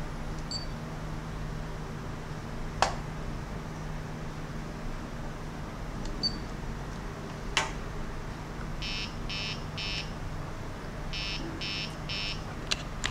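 Two sets of three short electronic beeps, each about half a second apart, with a few sharp clicks before and after them, as switches and buttons are worked on an RC car radio transmitter. A steady low hum runs underneath.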